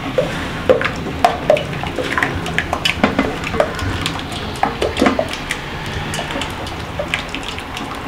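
Thin porridge sloshing in a steel pot as a wooden spoon stirs it, with frequent irregular knocks and scrapes of the spoon against the pot's side. The porridge is being stirred to cool it.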